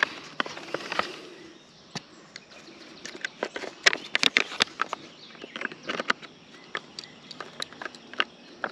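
Light plastic clicks and taps, with some rustling, as a squeeze water-filter straw and its packaging are handled; the clicks come at an uneven pace and are busiest a few seconds in.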